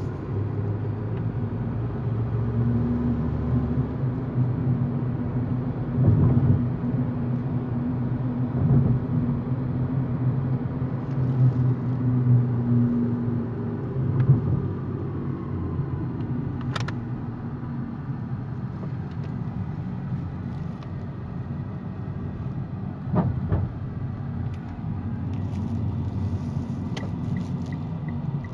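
Car engine and tyre noise heard from inside the cabin while driving: a steady low rumble, with a few short knocks.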